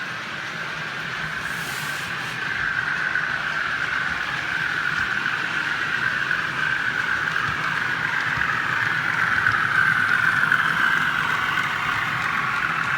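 OO gauge model train running on the layout track: a steady whirring of the small motor and wheels, growing gradually louder to a peak about ten seconds in, then easing slightly.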